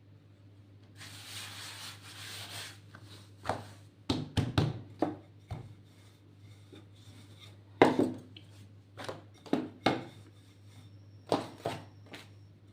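Rolling pin rolling out soft bread dough on a work surface: a soft rubbing swish for a couple of seconds, then a string of irregular knocks and taps as the pin is worked back and forth.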